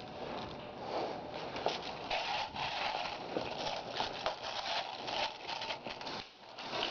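Continuous rustling and scraping noise with many small irregular clicks, like gear and clothing moving against a helmet-mounted camera.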